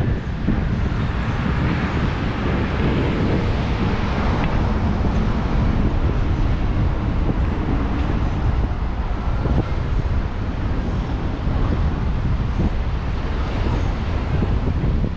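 City street noise: a steady rush of traffic, with wind buffeting the microphone.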